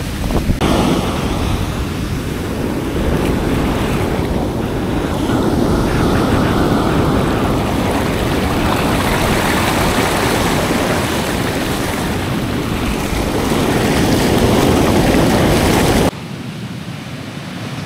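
Ocean surf: big waves breaking and washing up the beach in a loud, rushing wash that swells and ebbs, with wind buffeting the microphone. The sound drops abruptly to a quieter wash near the end.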